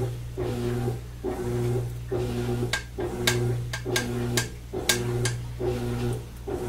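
A washing machine running in another room: a hum that swells and fades in a steady rhythm about once a second. Over it, a few light clicks come about three seconds in, as oil is poured from a glass jar through a strainer.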